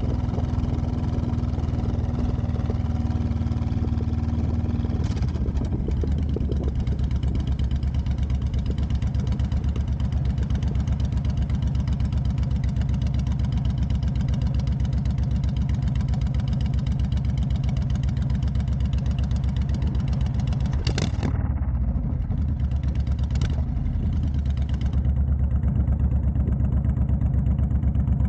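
Honda Fury's V-twin running through a Cobra Speedster Swept aftermarket exhaust as the motorcycle is ridden at low speed, with a steady low throb that gets louder near the end.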